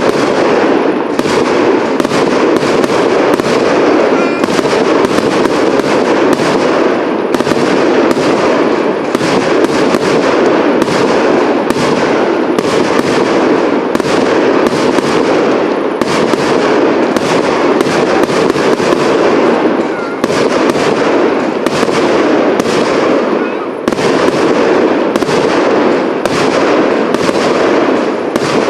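A fireworks cake (multi-shot battery) firing without a break: sharp bangs about once or twice a second over a continuous dense crackle of bursting stars.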